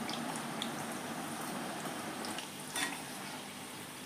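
Breadcrumb-coated chicken-and-potato donuts sizzling steadily as they deep-fry in hot oil, now golden and ready to come out. A metal slotted spoon clicks lightly against the pan a few times, most sharply near the end.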